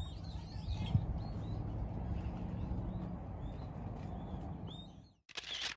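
Small birds chirping in short, scattered calls over a steady low rumble. About five seconds in the sound drops out, then a brief burst of noise, then it cuts off.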